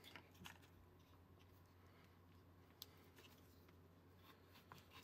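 Near silence: room tone with a faint steady low hum and a few faint small clicks.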